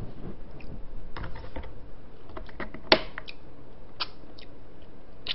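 Wooden chopsticks and a plastic ladle clicking and tapping against a plastic takeout container and a small bowl as food is picked out, with one sharper click about three seconds in.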